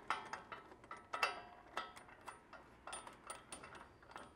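Faint, irregular metallic clicks and clinks, two or three a second, a few ringing briefly, from a steel body-mount bolt being started into a rock slider to hang it from the truck body.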